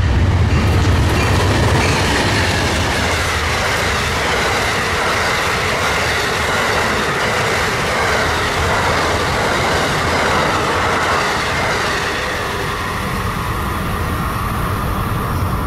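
Amtrak diesel-hauled passenger train passing close by: a low engine rumble from the locomotive at first, then the steady wheel-on-rail noise of the passing passenger cars, easing slightly near the end.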